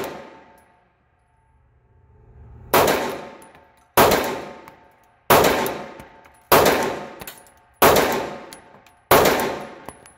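Six evenly spaced 9mm pistol shots from a Glock 43 fitted with a single-port compensator, about one every 1.3 seconds. Each shot rings out in a long echo off the steel booth of an indoor range.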